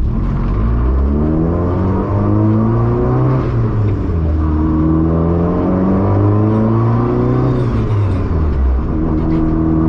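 Honda EF Civic's engine accelerating through the gears, heard from inside the cabin: the revs climb, drop at a gear change about four seconds in, climb again, then fall near the end and settle to a steady drone.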